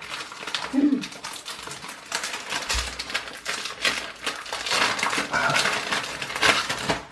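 An individually wrapped McVitie's Digestives cherry Bakewell slice's wrapper being crinkled and torn open by hand, a dense crackle of quick rustles. There is one dull bump about three seconds in.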